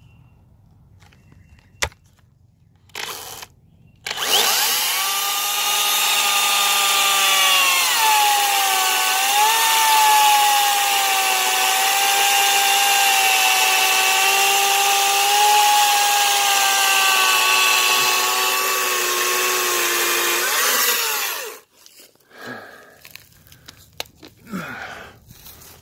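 Makita cordless top-handle chainsaw with an electric motor, cutting oak: a brief trigger blip, then the saw runs up to a high whine. Its pitch drops as the bar tip bores into the wood and stays lower and steady under load for about thirteen seconds, then cuts off suddenly when the trigger is released.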